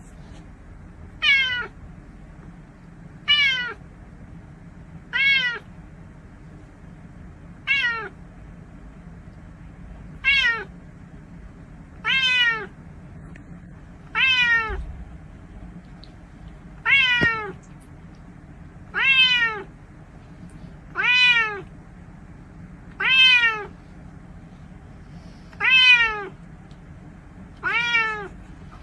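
A domestic cat meowing over and over, one short meow about every two seconds, thirteen in all.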